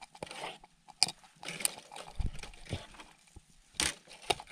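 Irregular clicks, knocks and rustling of camp cooking gear being handled while dehydrated bean flakes are mixed with water, with sharp knocks about a second in and again near the end.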